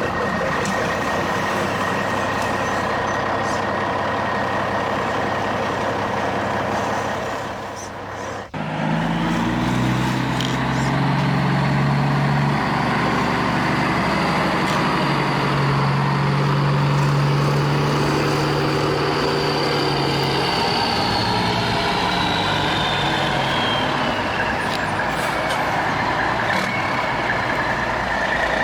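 Radio-controlled model construction vehicles running: a steady whine of small electric motors and gearboxes. About eight seconds in the sound briefly drops, then a deeper hum follows that shifts pitch in steps, and a high whine falls away near the end.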